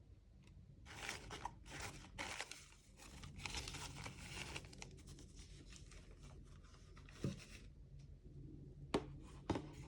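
Packaging for camera accessories being handled and torn open by hand, in several short bursts of rustling and tearing, with a few sharp clicks near the end.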